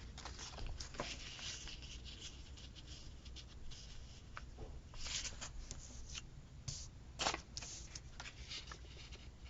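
Paper stickers and sticker sheets rustling and tapping as they are handled, in short scattered bursts, a little louder about five seconds in and again a couple of seconds later.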